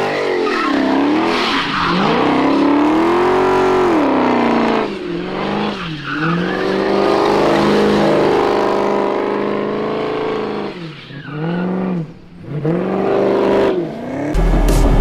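Supercharged 6.4-litre (392) HEMI V8 of a Dodge Challenger revving up and down again and again through a Borla exhaust while doing donuts, with tyres squealing. The engine pitch dips away briefly twice. Music cuts in near the end.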